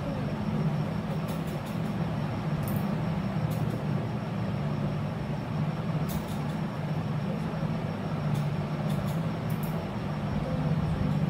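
Steady low rumbling background noise, with a few brief faint scratches of a felt-tip sketch pen colouring on paper.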